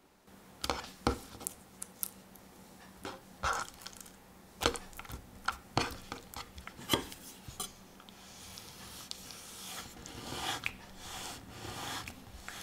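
Kitchen prep on a wooden cutting board: a run of light knocks and taps from the chicken breast and chef's knife being handled, then a soft, growing scraping as the knife slices horizontally through a raw chicken breast to halve it into thin pieces.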